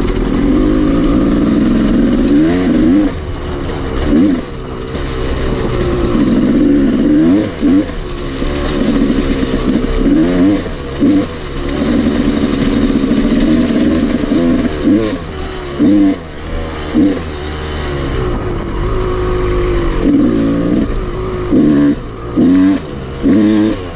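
Dirt bike engine being ridden, its pitch climbing and dropping again and again as the throttle is opened and closed, with a few short, sharp revs near the end.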